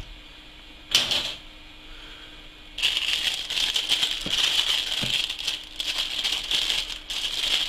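Plastic model-kit parts and packaging being handled: a short rustle about a second in, then continuous rattling and crinkling from about three seconds in, as a bag of plastic round bases is picked up.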